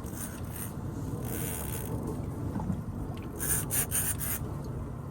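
Several short rasping, scraping sounds, one near the start, one around a second and a half in and a cluster around three and a half to four and a half seconds in, over a steady low rumble.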